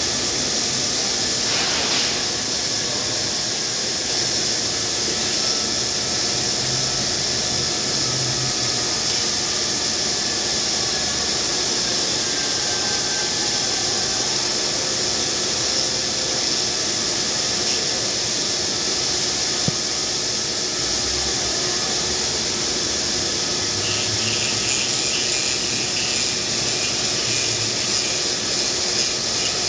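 A granite CNC spindle spinning a diamond profiling tool while an abrasive dressing stick is swept against it: a steady hissing grind. A faint rapid chatter joins near the end.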